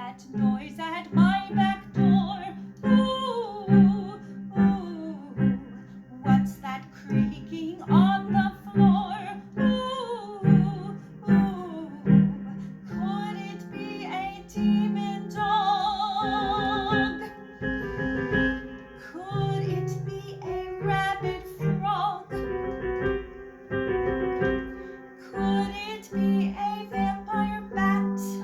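Song with piano accompaniment and a woman singing; about halfway through she holds a long note with vibrato.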